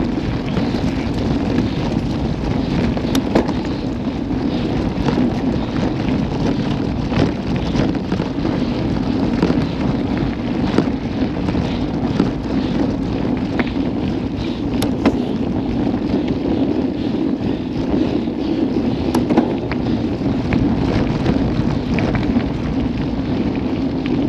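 Wind rushing over an action camera's microphone on a moving mountain bike, mixed with the steady rumble of knobby tyres on a gravel trail. Brief sharp clicks and rattles from the bike come through here and there over the bumps.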